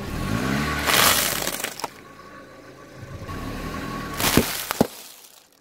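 A car tyre rolls over sealed snack packets, crushing them with a loud crunch and burst about a second in, over the low sound of the car's engine. Near the end come a couple of sharp cracks.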